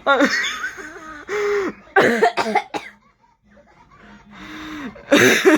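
High-pitched voice making wordless sounds in short bursts: squeals, laugh- and cough-like noises and held notes, with a brief lull about three seconds in and a loud burst near the end.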